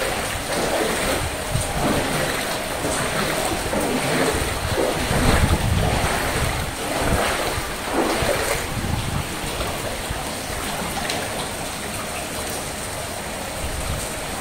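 Floodwater sloshing and swishing as someone wades through it, with repeated swishes for the first two-thirds, then a steadier wash of water.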